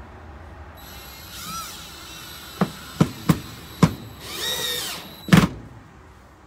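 Cordless drill driving wood screws through an aluminium mounting rail into a trailer's wooden floor, using a driver bit that doesn't properly fit the screw heads. The motor whines in two short runs, each rising and falling in pitch, with four sharp clicks between them and a loud knock near the end.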